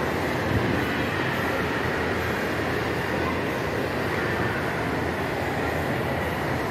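Shopping-mall atrium ambience: a steady, even rumble and hiss with no pauses.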